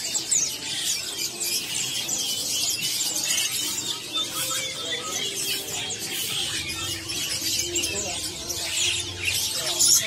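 Dense chorus of many small caged birds, such as munias and finches, chirping and squeaking at once: a constant high, overlapping twitter of short calls.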